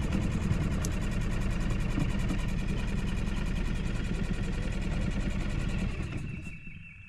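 A small boat's outboard motor running steadily at low speed, pushing the jon boat along, then dying away about six seconds in.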